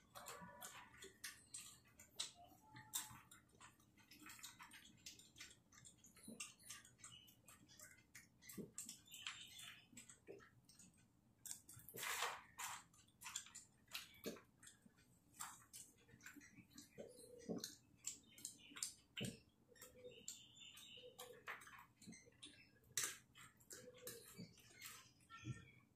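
Gray langur eating grains from a plastic tray: faint, irregular clicks and crunches as the food is picked up and chewed.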